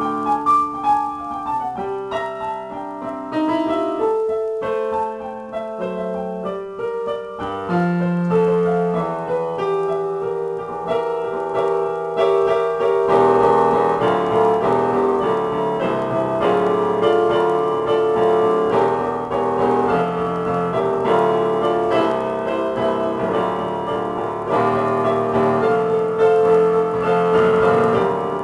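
Yamaha digital piano played solo in a free improvisation, single notes and chords at first, then fuller and louder chords from about halfway through.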